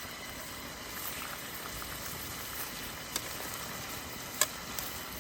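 Food sizzling steadily over a wood fire, with a few sharp pops, the loudest about four seconds in.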